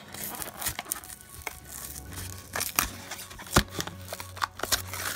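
Clear plastic blister pack being pried off its cardboard backing card by hand: stiff plastic crinkling and crackling with irregular sharp snaps and tearing, the sharpest crack about three and a half seconds in.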